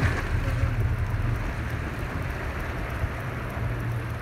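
Motorboat underway, its engine running steadily with a low rumble under a hiss of water and wind.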